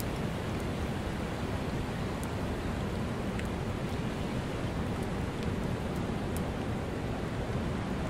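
Iceberg sea ambience: a steady, even rush of water, with a few faint high clicks scattered through.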